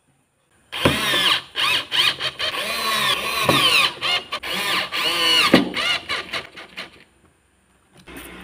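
Small power drill with a screwdriver bit driving screws into a PVC plate, whining in four or so short spells from about a second in, its pitch rising and dropping again and again as the screws bite.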